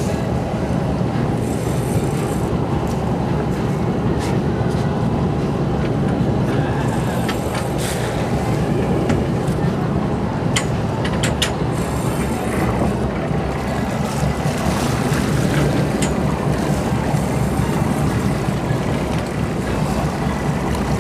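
Sportfishing boat's engines running steadily with a low rumble, and a few short clicks in the middle.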